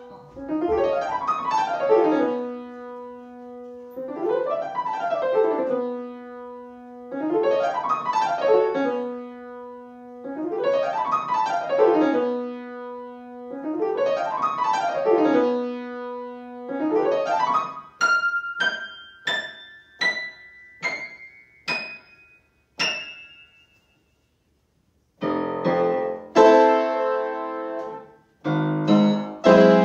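Grand piano being played: five repeated arpeggio figures sweep up and down over a held low note, then single high notes climb step by step about twice a second. After a brief pause, loud full chords come in near the end.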